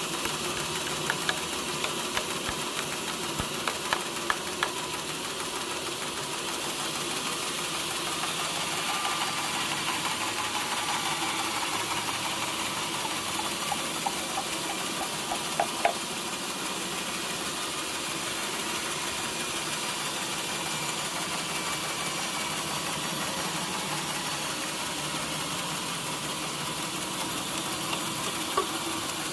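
Sawmill machinery running steadily, with a slight sag in pitch through the middle and a few sharp knocks.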